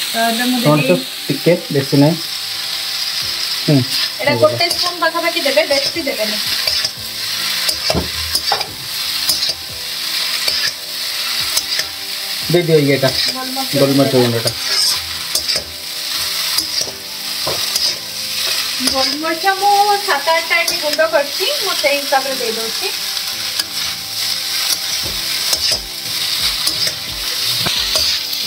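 Veg chow mein noodles sizzling in oil in an iron kadai on a gas flame while they are tossed and stirred with the sauces, the utensil clicking and scraping against the pan. A few brief pitched sounds come in between.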